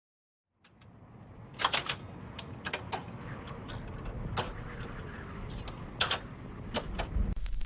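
A short silence, then a low rumbling hiss fades in with sharp clicks and taps scattered through it, about seven in all.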